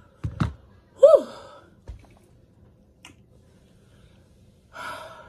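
A woman blows out a loud "whew" that falls in pitch about a second in, panting from the burn of very spicy noodles. A short low thump comes just before it, and a breathy gasp is heard near the end.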